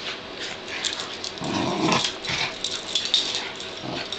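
Two pug-dachshund mix dogs play fighting: play-growling, loudest in a long growl about a second and a half in and a shorter one near the end, over the clicks and rustle of their scuffle.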